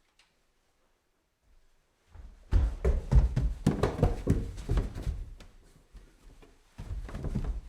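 Footsteps climbing stairs indoors: a quick run of footfalls starting about two seconds in and fading out a few seconds later, then another short group of steps near the end.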